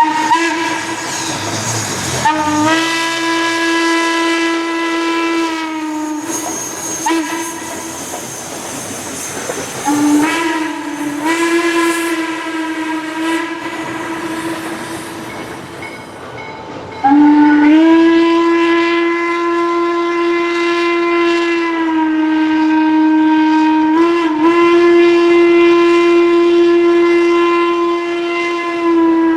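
Steam locomotive chime whistle blowing a series of long blasts. Each blast slides up in pitch as it opens. The last is the loudest and is held for over ten seconds, with a brief dip partway through.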